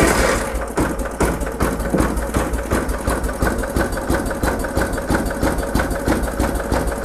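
Ride-on lawnmower engine freshly started from cold, running on choke with a little throttle: a steady fast pulsing beat over a low hum.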